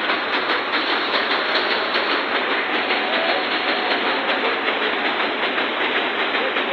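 Fairground swing ride running, a steady clattering rattle of its metal frame and mechanism heard from on board.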